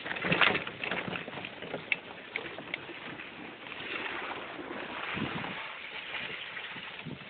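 Golf cart driving over a bumpy dirt trail: a steady rush of road and body noise with scattered knocks and rattles, loudest in a jolt about half a second in.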